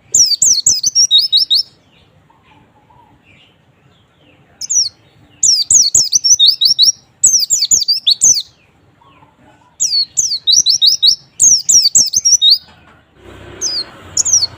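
White-eye (pleci) song: about six bursts of rapid, high, sharply falling chirps, each burst about a second and a half long with short pauses between. A faint hiss comes in near the end.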